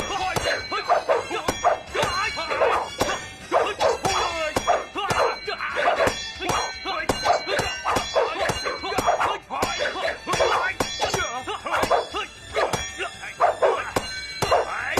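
Martial-arts fight sound effects: a rapid run of sharp hits and blade clashes mixed with fighters' yells and grunts, busy and loud throughout.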